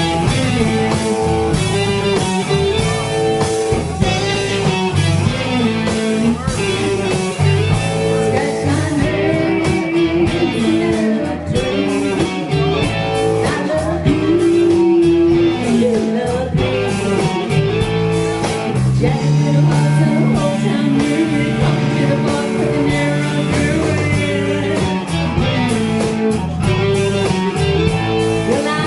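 A rock band playing: electric guitar over bass and drums with a steady beat.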